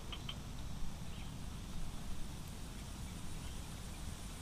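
Outdoor ambience at a swampy pond: low, fluttering wind rumble on the microphone, with a few short high chirps at the start and a faint steady high insect tone.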